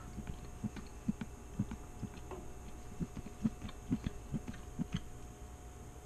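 Someone eating a stir-fry: soft, irregular chewing knocks with a few small sharper clicks, about a dozen over the few seconds.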